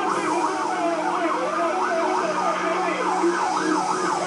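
Police car sirens on yelp, several overlapping, each sweeping quickly up and down in pitch a few times a second, heard through a television's speaker.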